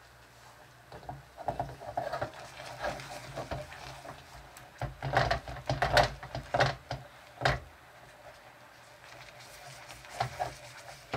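Wooden spoon stirring thick melted gummy candy in a small stainless steel saucepan, knocking and scraping against the pot in irregular strokes. It starts about a second in, is loudest around the middle, and comes back with a few knocks near the end.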